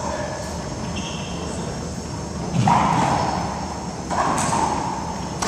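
Racquetball play: two sharp impacts of the ball on racquet and court walls, about a second and a half apart, each echoing in the enclosed court.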